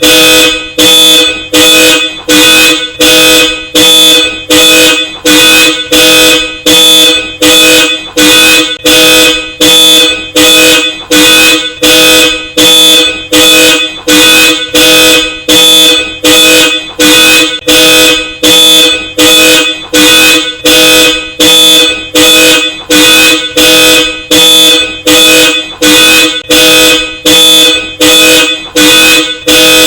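Car alarm sounding through a Hella Supertone two-tone car horn: loud, evenly repeated honks, about three every two seconds.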